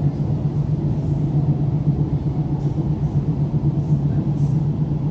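Helsinki Metro train running at speed, heard from inside the carriage: a steady low rumble of wheels on rail with a constant low hum, a few faint hisses on top.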